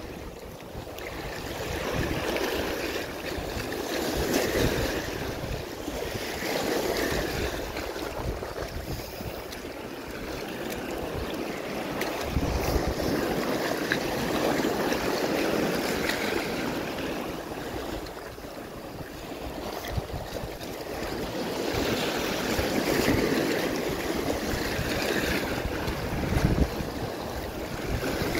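Small waves washing over a rocky reef shore, the surf swelling and fading every few seconds, with wind buffeting the microphone.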